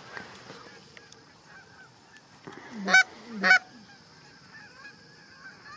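Canada geese honking: two loud honks about half a second apart, about three seconds in, over the faint, continuous honking of a distant flock.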